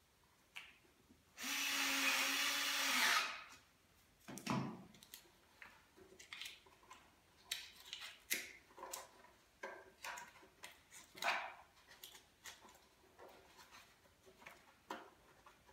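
A loud, steady hiss lasting about two seconds, a second or so in. Then a long run of short clicks and knocks as hands handle and press the plastic front cover of a Baby Jogger City Elite stroller.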